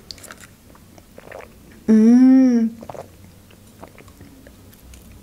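A drink sipped through a plastic straw with soft, close-up mouth and swallowing sounds, and a single hummed "mmm" about two seconds in that rises and falls in pitch.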